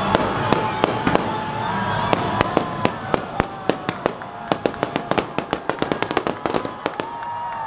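Fireworks going off in a quick series of sharp cracks and bangs, coming thickest from about four to seven seconds in.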